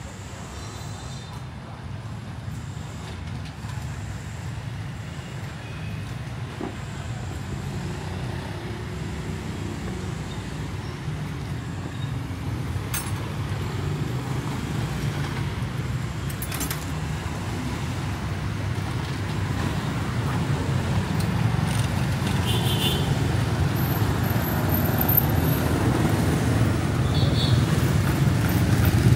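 Road traffic noise: a steady low rumble of passing engines that grows steadily louder, with a few brief high tones near the end.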